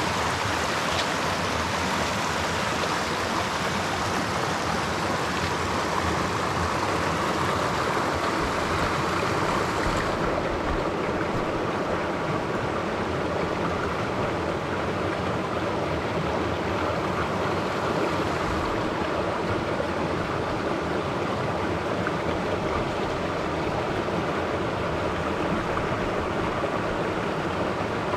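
Creek water flowing steadily, a continuous rushing wash. The highest hiss drops back slightly about ten seconds in and again a little past halfway.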